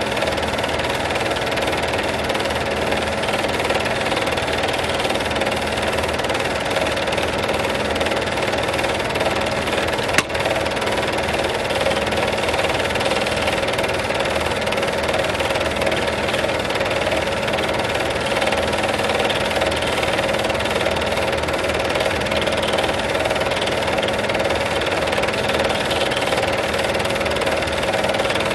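Home-movie film projector running: a steady mechanical whir with a constant hum, and one sharp click about ten seconds in.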